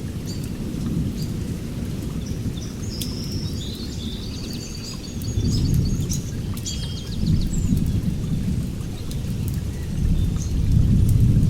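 Heavy rain falling on forest foliage: a steady hiss with many sharp drop ticks and a deep rumble that swells several times. A bird chirps in quick repeated notes from about three seconds in to about six seconds in.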